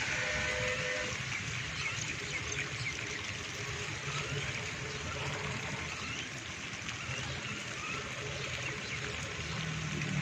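Steady rushing and trickling of rainwater running off after heavy rain.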